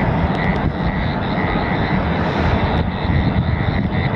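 Wind buffeting the phone's microphone: a loud, uneven low rumble. A faint chirping call repeats in the background.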